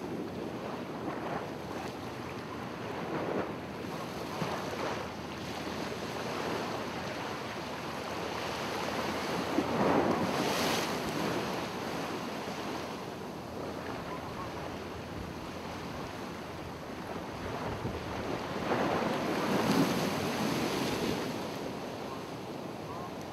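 Ocean surf washing onto the beach, with wind buffeting the microphone. The surf swells louder twice, about ten seconds in and again around twenty seconds.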